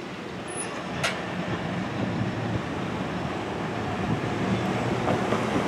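Double-stack intermodal freight train rolling away over the rails: a steady rumble of wheels on track that grows slightly louder toward the end, with one sharp click about a second in.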